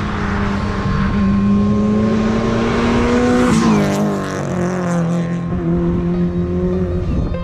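A car accelerating up to and past: its engine note climbs as it approaches, drops sharply as it passes about three and a half seconds in, then holds lower and fades as it drives away, with tyre noise underneath. The passing car is a blue Subaru Impreza.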